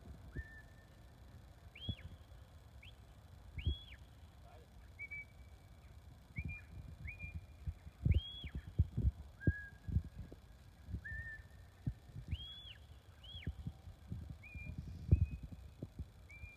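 Shepherd's whistle commands to a working sheepdog: a string of clear whistled notes, some long and level, some short and rising then falling, repeated every second or two. Low rumbling thumps on the microphone sit underneath.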